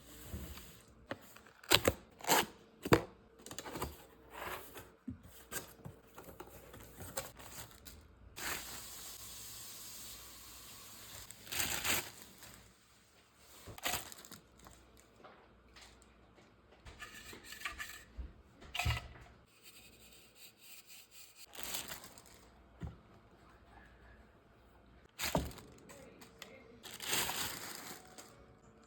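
Unboxing: a vacuum cleaner's cardboard box and plastic packaging being handled and opened, an irregular run of clicks, knocks, tearing and crinkling, with a few seconds of steady rustling about nine seconds in.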